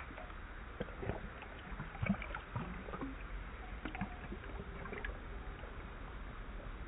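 Water splashing and sloshing in a stainless steel dog bowl as a dog paws and noses at it, in irregular splashes with the loudest about two seconds in.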